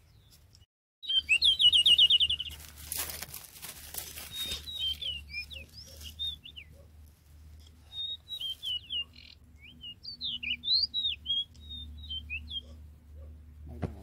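Magpie-robin singing: a fast rattling trill about a second in, then a long run of varied whistled notes that slide up and down. A brief burst of rustling noise comes between them, around three seconds in.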